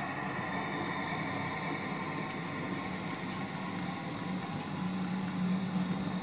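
Model diesel locomotive's sound decoder playing a CC 72000 diesel engine running sound through its small on-board speaker while the model train moves along the track. A low engine drone grows louder in the last couple of seconds.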